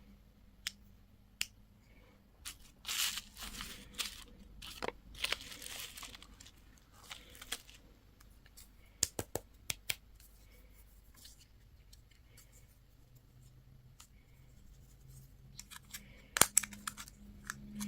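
Candy wrappers being torn open and crinkled in a few short bursts, with sharp clicks and taps about halfway through and again near the end.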